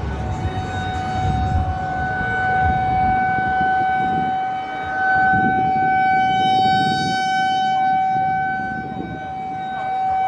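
A siren sounding one steady, unchanging pitch, over a rough low rumble.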